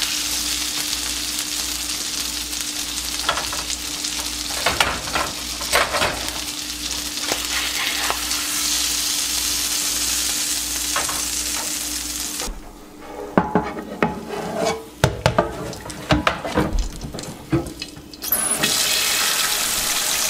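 Fish fillets sizzling in butter in a frying pan, with a few spatula scrapes and clicks as they are turned and lifted out. The sizzle stops about two-thirds of the way through, giving way to a run of knocks and clatters. Near the end a kitchen tap starts running water into the sink.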